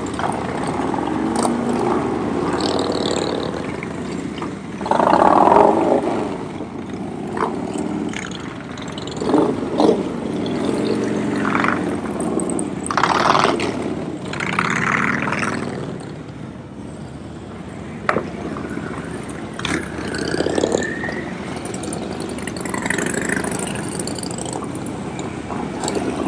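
Harley-Davidson motorcycles riding in one after another, their V-twin engines running and revving, the sound swelling and fading as each bike passes.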